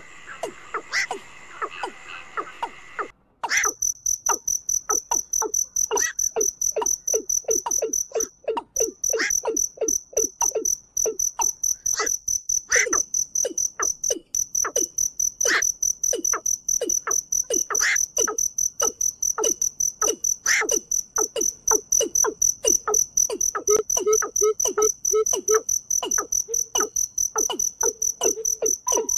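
Frogs croaking for about three seconds, then an abrupt switch to a cricket's continuous high-pitched trill over a fast, even run of low pulsing calls, several a second.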